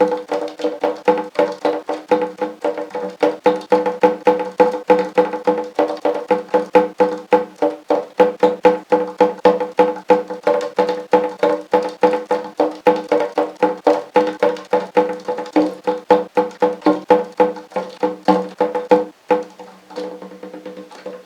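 Background music with a steady clicking beat, about three beats a second, over held instrument notes, fading out near the end.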